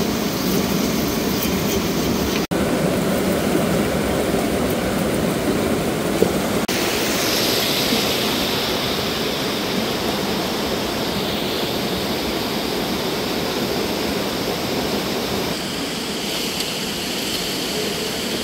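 Rushing river water pouring over boulders in rapids, a steady noise that cuts out for an instant about two and a half seconds in.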